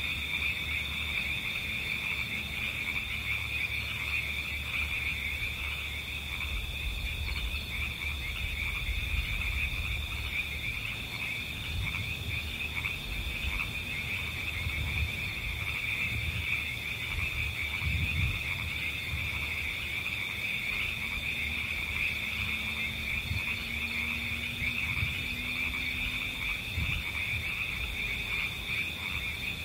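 A steady, high-pitched chorus of calling animals that runs on without a break. Occasional low thumps sound underneath it.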